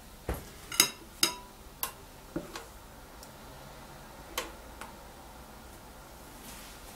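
Metal ladle clinking against a glass bowl of waffle batter as the batter is scooped: a scattered series of sharp clinks, the loudest about a second in with a short ring.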